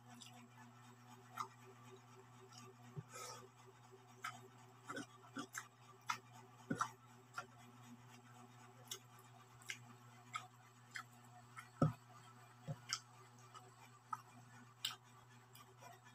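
Eating sounds of someone eating by hand from a plate and chewing: irregular light clicks and smacks, about one or two a second, with a sharper knock about twelve seconds in. A steady low hum runs underneath.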